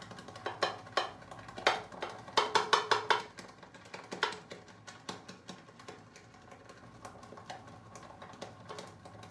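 Badger shaving brush being worked around a lathering bowl to load lather, making quick wet clicking taps. They come in a fast run about two seconds in, then sparser ticks.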